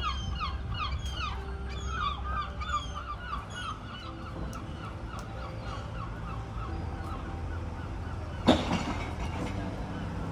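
Gull calling: a fast run of repeated falling calls, about four or five a second, that fades out about four seconds in. A single sharp knock comes near the end, over a low steady rumble.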